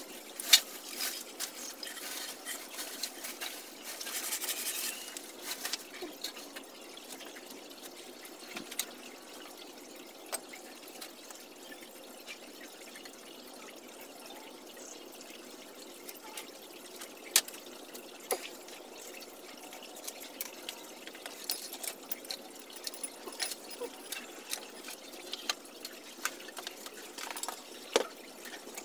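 Faint handling sounds of a wooden knife sheath and a small plastic squeeze bottle: soft rustling with a few scattered sharp clicks, the loudest about half a second in.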